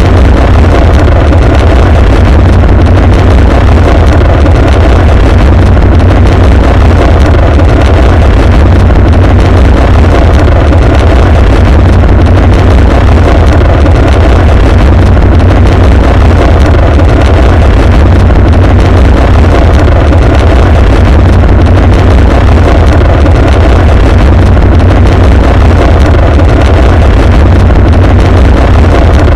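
The rumbling roar of a rocket explosion, boosted until it clips and distorts, running on as one unbroken, steady low rumble.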